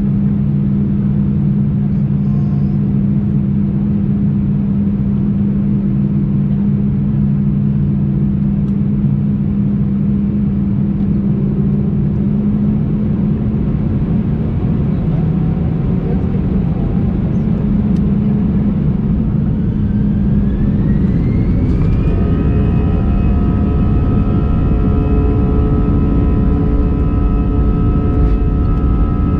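Airbus A319 jet engines heard inside the cabin over the wing, first running at low power with a steady hum. About two-thirds of the way in, a rising whine marks them spooling up to takeoff power. They then hold several steady higher whining tones over a heavier rumble.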